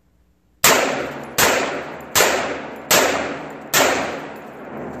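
Five shots from an AR-15 rifle in .223, fired semi-automatic about three-quarters of a second apart into a row of steel drums, each shot with a long fading tail.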